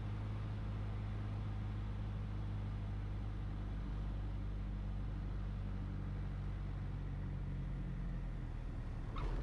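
Steady low engine drone of a 1976 Cessna Cardinal 177RG's four-cylinder Lycoming engine at low power during the landing, with part of its hum fading near the end.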